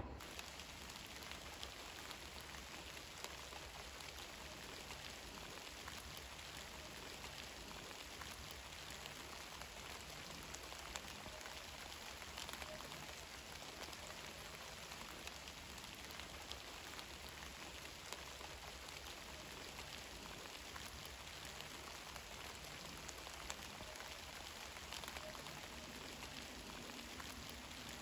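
Light rain falling on fallen leaves: a faint, steady hiss of tiny ticks.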